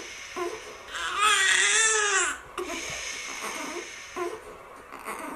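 A baby crying, with one long wailing cry about a second in and short fussy whimpers around it, against a steady high hiss.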